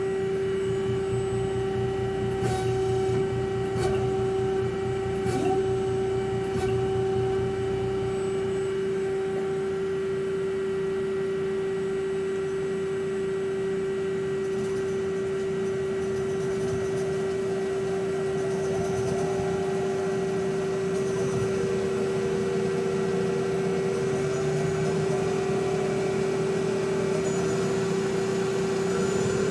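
ACRA CNC-1440 lathe running under power: a steady hum with a constant whine, and a few light clicks in the first several seconds.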